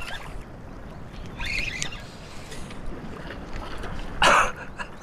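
Steady wind noise on the microphone with choppy water lapping at the shore, and a brief burst of noise about four seconds in.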